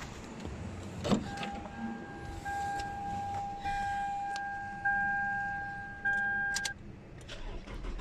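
A knock about a second in, then a steady, high electronic warning tone from the Toyota Camry's buzzer for about five and a half seconds, which cuts off with a click near the end.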